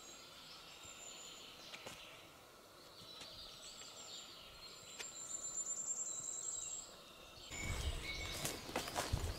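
Forest ambience: birds calling and insects chirping on high, steady notes, with a fast trill about five and a half seconds in. Near the end the sound changes abruptly to louder rustling with a low rumble and a few sharp snaps.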